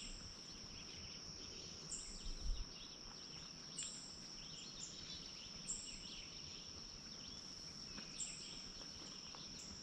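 Faint lakeside nature ambience: a steady high-pitched insect drone, a short high call repeating about every two seconds, and scattered bird chirps.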